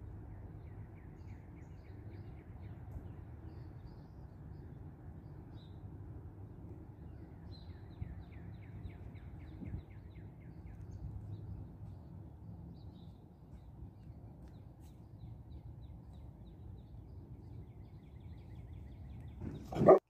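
Songbirds singing rapid trills of short, quick notes, in phrases near the start, around the middle and near the end, with faint higher chirps between them. Under them runs a steady low background rumble.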